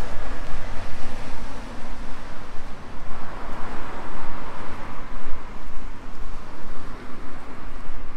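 Wind buffeting the microphone, a gusty low rumble, over outdoor city traffic noise, with a rushing swell a few seconds in.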